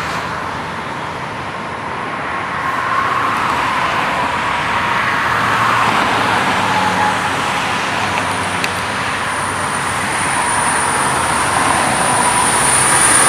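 Steady noise of highway traffic passing: tyre and engine noise of cars, buses and trucks, swelling slowly toward the end. A thin high whine comes in about two-thirds of the way through and grows louder.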